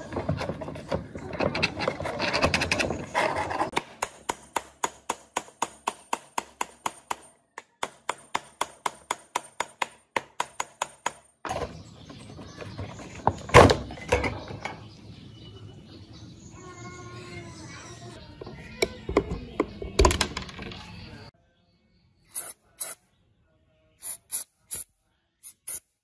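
A rusty electric table fan being taken apart by hand: rubbing and handling of its plastic blade and metal cage, then a fast, even run of sharp clicks lasting several seconds, then scattered knocks with two loud thunks, and a few short clicks near the end.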